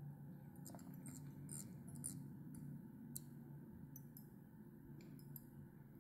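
Near silence: a faint steady hum with scattered faint high ticks as fine tying thread is wound from a bobbin onto a fly hook held in a vise.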